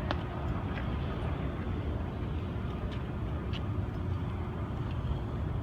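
Steady low rumble of motor vehicles on the street, with a few faint short ticks.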